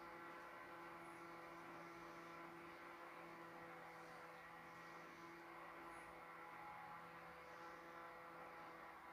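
Near silence: a faint, steady electrical hum, with no clear sound from the cooking.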